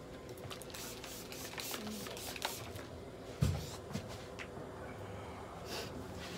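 Rustling and rubbing of a cloth handled by a gloved hand and wiped across a stainless steel exam table, with a dull thump about three and a half seconds in.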